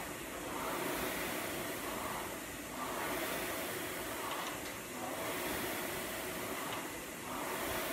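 Air rowing machine's fan flywheel whooshing, swelling with each pull and fading on the recovery, roughly every two seconds.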